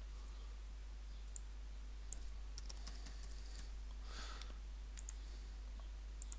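Computer keyboard typing in a short quick run, then a few separate mouse clicks, over a steady low hum.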